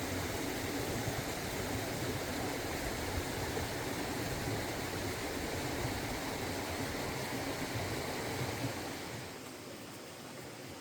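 Rushing water of a waterfall, a steady even hiss that turns softer about nine seconds in.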